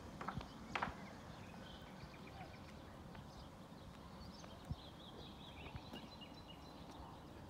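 A couple of footsteps on a paved road in the first second. Then quiet outdoor background with small birds chirping faintly, in quick runs of short high notes.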